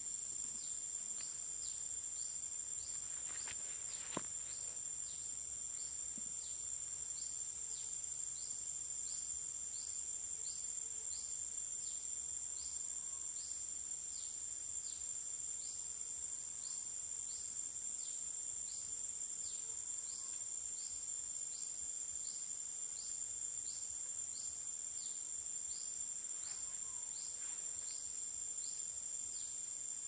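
Steady high-pitched drone of insects, with a short chirp repeating about once a second beneath it.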